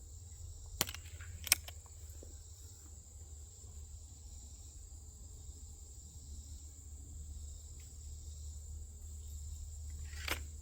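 Benjamin Prowler .22-calibre break-barrel air rifle firing: two sharp cracks about two thirds of a second apart, about a second in, the second the louder. A single sharp click comes near the end, over steady high insect chirring.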